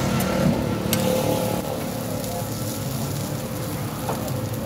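Steady background noise of a street-food stall with road traffic, broken by a few sharp clicks of a metal spatula on the steel griddle.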